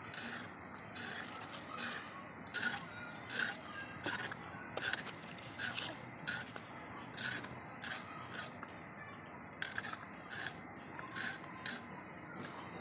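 A carrot being cut against a boti, a fixed upright kitchen blade: a string of short rasping cutting strokes, about one and a half a second, with a brief pause about two-thirds of the way through.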